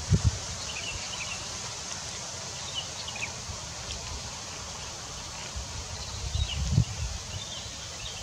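Wind blowing through pine trees and gusting on the microphone, with low rumbles right at the start and again about two-thirds of the way in. Faint short bird chirps come now and then over it.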